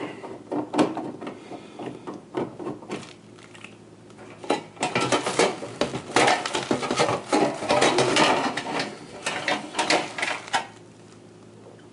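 Dishwasher toe kick panel being worked loose and pulled off the bottom of the machine: a run of clicks, scrapes and rattles, busiest in the middle, that stops shortly before the end.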